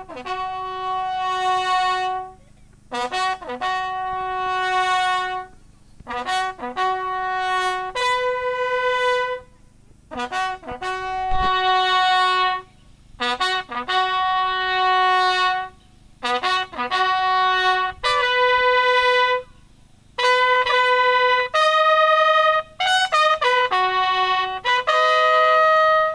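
A solo military bugle call: a series of phrases, each opened by a few quick short notes and settling on a long held note, with short pauses between phrases.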